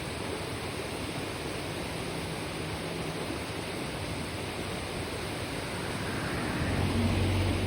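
Kibune River, a mountain stream, rushing and splashing steadily over rocks. A low hum builds about six and a half seconds in and is loudest near the end.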